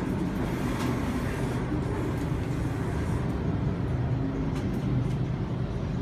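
Sydney Trains Waratah electric train running underground, heard from inside the carriage: a steady low rumble with a few faint clicks.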